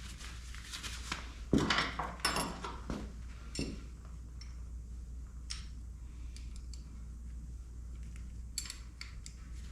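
Small metal clicks, clinks and scrapes of a wrench and parts as a motorcycle handlebar lever's cable adjuster is tightened. There is a denser scraping stretch a couple of seconds in, then scattered single clicks, over a low steady hum.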